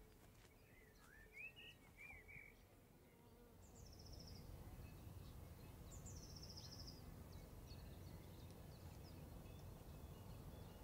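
Near silence: faint outdoor ambience with a few small bird chirps about a second in, then short high trills every few seconds over a low steady rumble that sets in about four seconds in.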